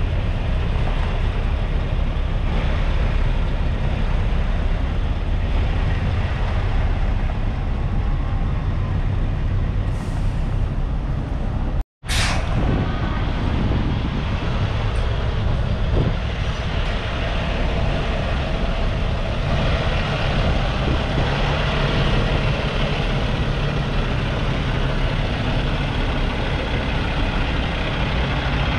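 Heavy diesel truck engine running with a steady low rumble. The sound drops out briefly about twelve seconds in, then a short, sharp hiss of air follows.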